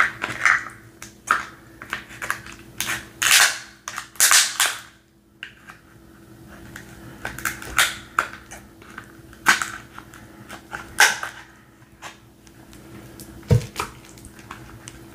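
Scissors snipping and cracking through a king crab leg's shell: a run of sharp, irregular snaps and clicks, with a heavier knock near the end.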